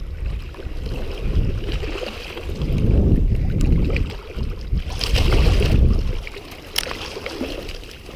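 Strong wind buffeting the microphone over sloshing shallow water, with a burst of splashing about five seconds in as a hooked striped bass is pulled out of the water. A single sharp click follows near the end.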